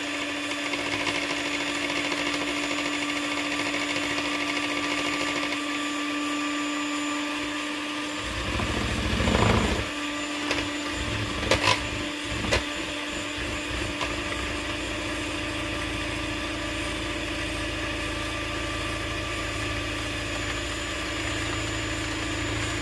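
Electric stand mixer's beaters running steadily in a plastic bowl, whisking eggs and sugar while oil is poured in a little at a time. About a third of the way through a deeper hum joins the steady whine, and two sharp clicks come a second apart soon after.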